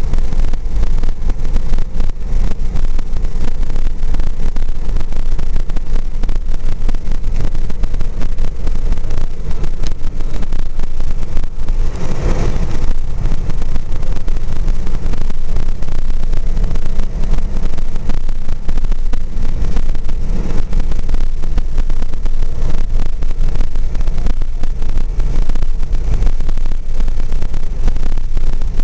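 Steady road and wind noise of a car driving at highway speed, heaviest in the low end, with a brief louder rush about twelve seconds in.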